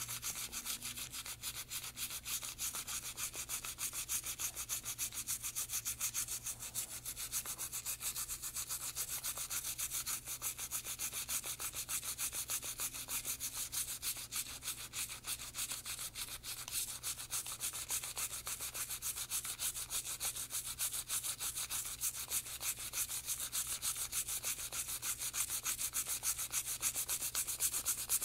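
Toothbrush bristles scrubbing an aluminum part of a Silencer Co. Sparrow 22 rimfire suppressor with quick, continuous back-and-forth strokes, a steady scratchy scrubbing that works lead and carbon fouling loose. The scrubbing gets a little louder near the end.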